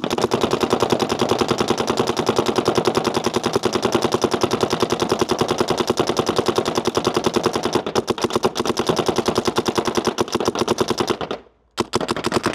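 DLX Luxe IDOL paintball marker firing paintballs in a rapid, even stream of compressed-air shots, driven by its HPA tank. The firing breaks off briefly near the end, then resumes.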